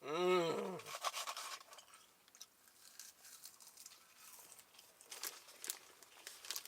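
A short voiced sound from a man, rising then falling in pitch, at the start. Then he goes on eating a burger: soft chewing with crinkling of the paper wrapper and scattered small clicks.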